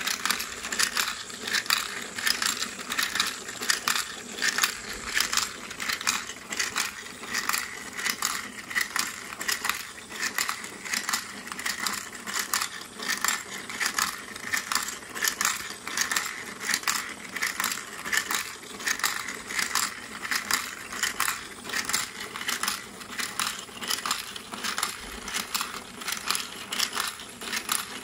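Glass marbles clicking and rolling through a motor-driven white plastic marble machine: a steady run of small clicks and knocks, a few a second, over the faint hum of its small gear motor.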